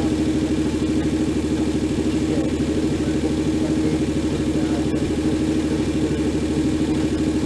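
A superbuggy's Hošek V6 engine idling steadily at about 1,500 rpm while the car stands still.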